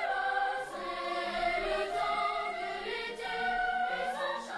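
A boys' choir sings a slow melody in held notes, with the pitch moving every half second to a second.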